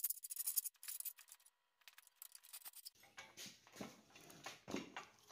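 Hand file scraping a small steel piece clamped in a bench vise, in several quick strokes. About three seconds in the filing stops, leaving only a few faint knocks from handling the piece.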